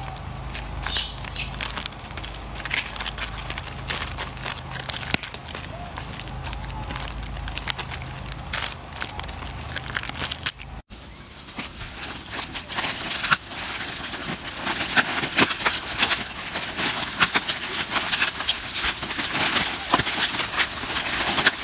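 Plastic snack wrappers crinkling and crackling as macaques grab and pull at the wrapped cakes, many quick sharp crackles. After a brief drop-out about halfway, the crackling becomes denser and louder.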